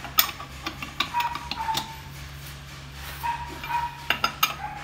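Sharp metal clicks and knocks of a lug wrench on a wheel's lug nuts, the loudest just after the start. A thin high whine is heard twice, a little after a second in and again after three seconds.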